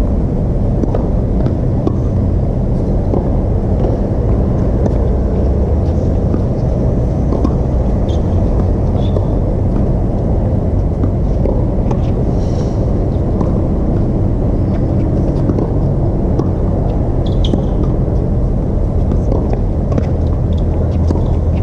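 A steady low rumble fills the sound throughout. Over it come scattered faint ticks and a few brief squeaks from a tennis rally on a hard court: ball hits and shoe squeaks.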